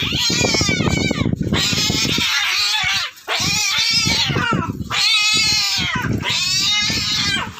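Cats yowling at each other in a fight standoff: about five long, wavering caterwauls one after another with only short breaks.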